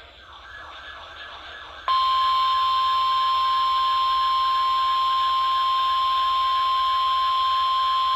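NOAA Weather Radio broadcast: a couple of seconds of radio hiss, then the single-pitch 1050 Hz warning alarm tone comes on about two seconds in and holds steady over the hiss. It signals that a severe weather warning is about to be read.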